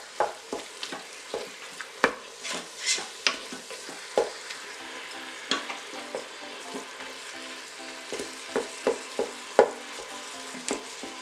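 Ground beef sizzling as it browns in an Instant Pot on sauté. A spoon breaking up the meat knocks and scrapes against the inner pot at irregular intervals.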